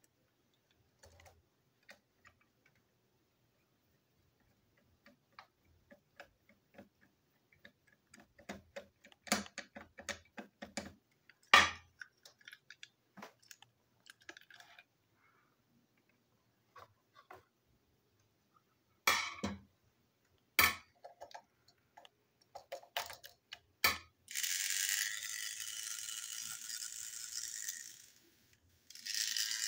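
Scattered small clicks and clacks of a small plastic toy train being handled and taken apart, with a few sharper knocks. Near the end, a steady rapid rattle of something small being shaken runs for a few seconds, breaks off briefly, and starts again.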